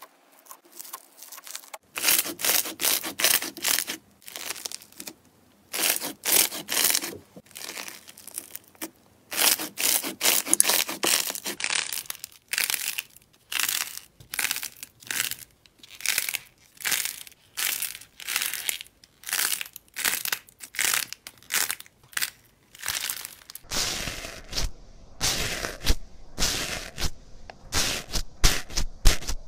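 Slime being stretched, squeezed and pressed by hand, giving dense rapid crackling and popping like crunchy, beaded slime. Near the end the texture changes to a deeper, rougher squishing as foamy slime is worked.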